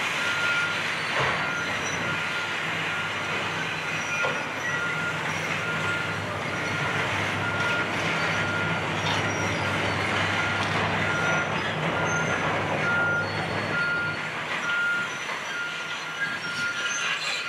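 Tracked excavator travelling on its steel crawler tracks, its reversing alarm giving an even, repeating high beep over the engine's running and the clatter of the tracks. The engine's low drone eases near the end.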